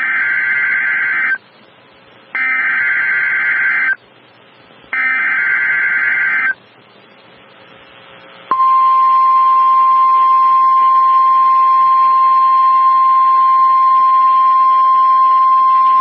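Emergency Alert System SAME header data bursts, a harsh digital warble, sounded three times with about a second's pause of faint hiss between them, then the NOAA Weather Radio 1050 Hz warning alarm tone comes on about eight and a half seconds in and holds steady.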